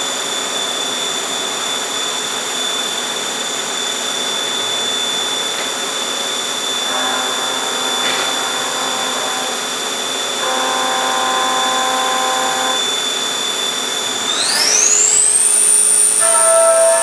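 CNC vertical milling machine roughing a part with an end mill: a steady high whine, with lower tones coming and going as the tool cuts. About fourteen seconds in, the whine rises sharply in pitch and holds there.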